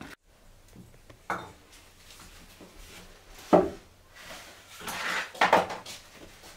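Kitchen utensils clattering as a knife, chayotes and a steel bowl are handled on a floor: a knock about a second in, a louder knock midway, then a short run of clinks and scrapes near the end.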